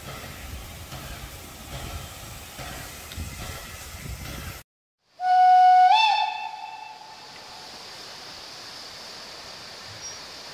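A steam locomotive working along the line with a low rumble; the sound then cuts out briefly. A steam locomotive whistle follows, one blast of about two seconds whose pitch steps up slightly partway through, then fades into a faint steady steam hiss.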